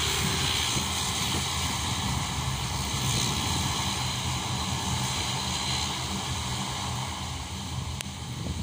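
Twin turboprop engines of a Dash 8-400 airliner running as it rolls along the runway after landing: a steady propeller drone with a thin high whine for a few seconds in the middle, slowly fading near the end as the plane moves away.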